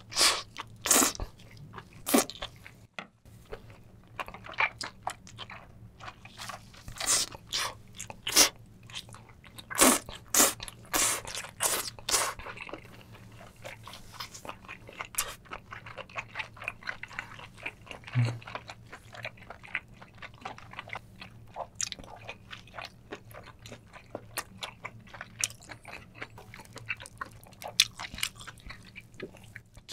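Close-miked chewing of a whole spicy braised octopus leg. Loud biting and smacking for about the first twelve seconds, then quicker, quieter chewing, over a faint low hum.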